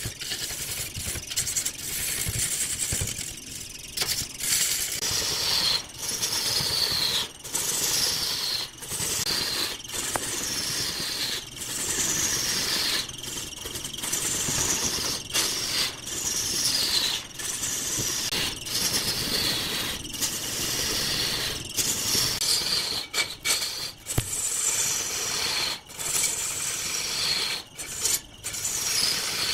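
A tool cutting wood squeals high, sliding down in pitch on each stroke. The squeal repeats about every second and a half, with short breaks between strokes.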